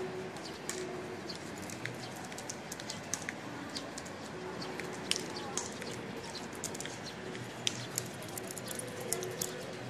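Steady outdoor background with many short, sharp high clicks and chirps scattered irregularly throughout.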